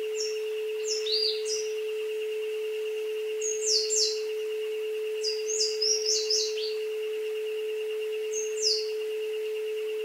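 A steady 432 Hz tone runs under a recorded jungle soundscape, with a fainter higher tone that wavers rapidly. Birds chirp over it in short, high, falling calls: a few about a second in, clusters near four and six seconds, and one more near the end.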